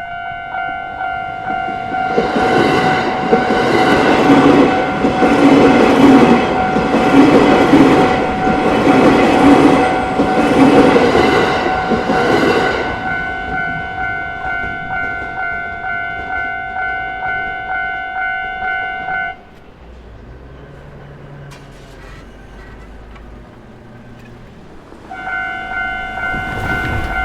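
Japanese level crossing's electronic warning bell ringing in quick, regular dings as a JR Togane Line train passes over the crossing from about two seconds in until about thirteen, its wheels clattering over the rail joints in a steady rhythm. The bell stops suddenly about two-thirds of the way through and starts ringing again near the end.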